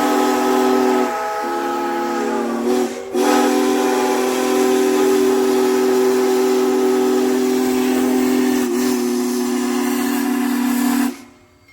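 Multi-chime steam locomotive whistle, DM&IR 332's, blowing long steady chords over a hiss of steam. The chord breaks off briefly about a second in and again near three seconds, then is held until it cuts off abruptly near the end.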